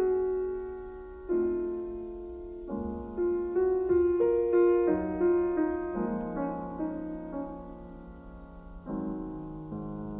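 Background piano music: chords and single notes struck and left to ring, the harmony changing every second or two.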